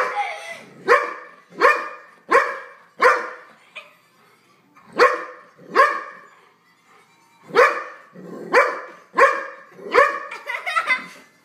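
Golden retriever barking at a cushion's zipper: about a dozen sharp barks in three bouts, with short pauses about three and a half seconds in and again around seven seconds in, then a quicker flurry near the end.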